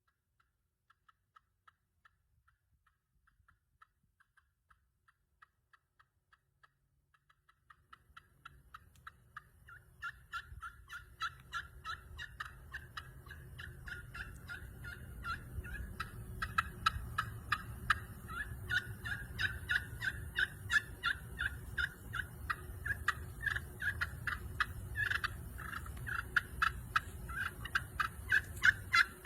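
Ceramic turkey pot call in a padauk wood pot, played to imitate turkey calls: a string of short, even notes that starts faint and sparse, then grows louder and quicker about eight seconds in and keeps going as a fast rhythmic run.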